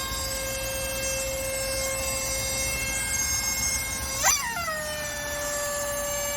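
Rubber screaming chicken toy wailing in one long, steady note. About four seconds in it gives a sharp squawk, then holds a slightly higher wail that slowly sinks in pitch: the toy passed off as a strange engine noise.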